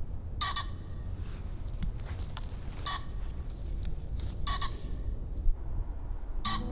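A bird calling outdoors: four short, clear calls spaced about one and a half to two seconds apart, over a steady low rumble.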